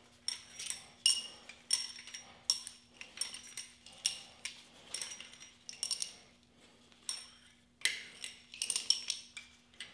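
Steel pushrods being pulled one by one from a Chevy 350 small-block's cylinder head and gathered in a hand, clinking and ringing against each other. A string of light metallic clinks, with a short lull about two-thirds of the way through.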